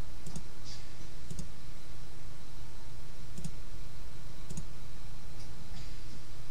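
Several scattered computer mouse clicks, spaced a second or more apart, over a steady low electrical hum.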